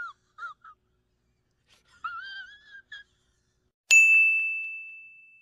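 A wavering, whistle-like tone with a fast vibrato sounds in short snatches and then for about a second. Near the end a single bright bell ding strikes and rings out, fading over about a second and a half.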